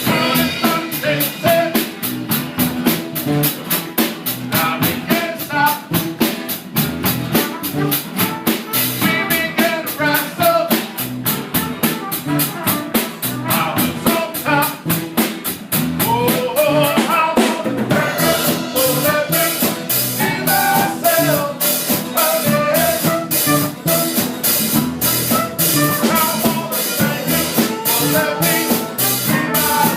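Live band playing an up-tempo number, with the drum kit keeping a steady beat of about four cymbal strokes a second under bass and guitar. The cymbals get brighter about two-thirds of the way in.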